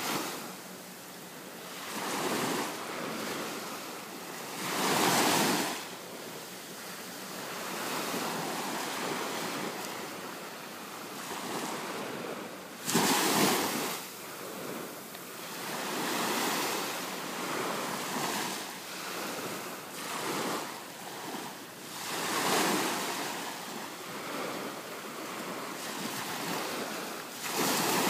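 Ocean surf washing on a beach, rising and falling in surges every few seconds, with wind on the microphone. The loudest surge comes suddenly about halfway through.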